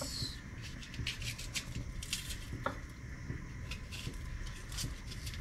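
A kitchen knife scraping and peeling the dry papery skin off an onion held in the hand: light, irregular scratching and crackling ticks.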